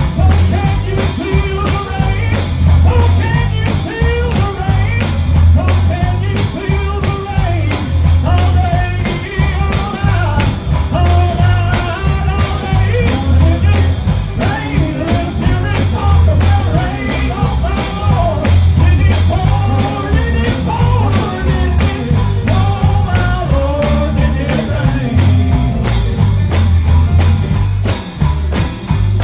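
Live gospel band music with singing: heavy bass, a steady drum beat and a melody line over it.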